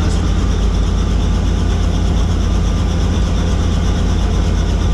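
Helicopter running: a loud, steady drone of turbine and rotor, with a fast, even beat from the rotor blades.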